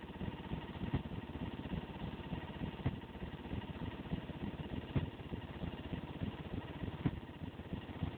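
Loud dance music heavily distorted by an overloaded camera microphone. A muddy, pulsing low beat dominates, with stronger accents about every two seconds.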